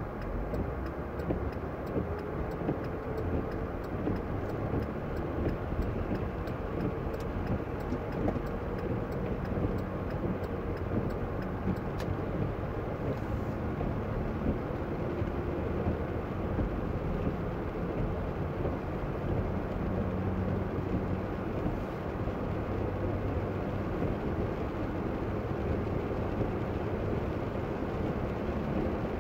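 Steady in-cabin road noise of a car driving in the rain: the engine runs and the tyres hiss on the wet road, with the pitch of the drone shifting slightly as speed changes. A faint regular ticking sounds during the first third.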